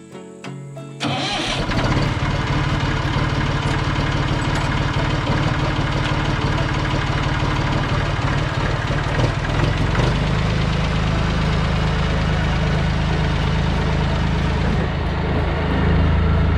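Massey Ferguson 245 tractor engine starting about a second in and settling into a steady idle, then running a little louder near the end as the tractor moves off.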